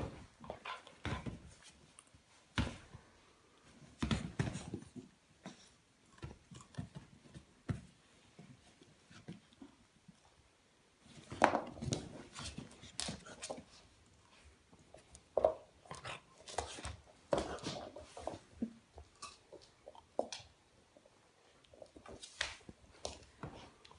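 Golden retriever puppies moving about and playing: irregular taps, scuffs and knocks of paws and claws on a wooden floor and a padded dog bed, busiest about halfway through.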